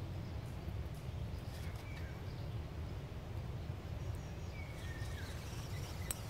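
Outdoor ambience: a steady low rumble with a few faint bird chirps, one about two seconds in and a couple more near the end.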